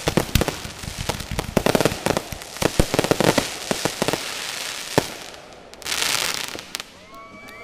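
Fireworks finale: rapid crackling and many sharp bangs in quick succession, with one strong bang about five seconds in. A short hissing rush follows, then it dies down.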